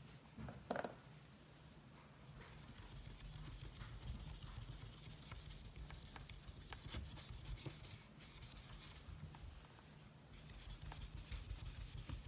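Magic eraser damp with rubbing alcohol scrubbed back and forth over a painted cabinet door: a faint, uneven rubbing. A low steady hum sits underneath, and there is a light knock about a second in.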